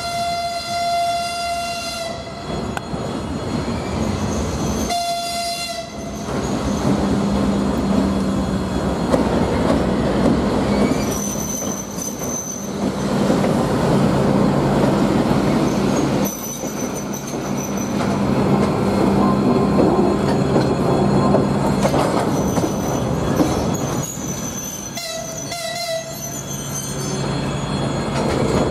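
TEM7A shunting diesel locomotive sounding its horn, which stops about two seconds in, then gives a short blast a few seconds later and another near the end. Between the blasts its diesel engine runs steadily as it passes close by hauling a freight wagon, with brief high wheel squeals from the curved track.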